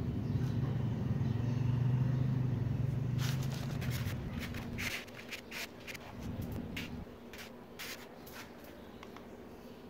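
Trigger spray bottle of degreaser squeezed again and again, about a dozen quick hissing squirts over several seconds. A low steady rumble underneath fades out about halfway through.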